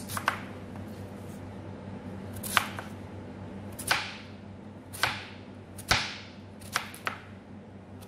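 Kitchen knife cutting through raw sweet potato and knocking on a plastic cutting board, about eight separate sharp cuts at an irregular, unhurried pace.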